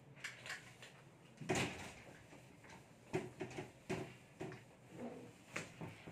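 A handheld eraser wiping a whiteboard: a series of short swishing rubs, the strongest about a second and a half in, then quicker, shorter strokes through the rest.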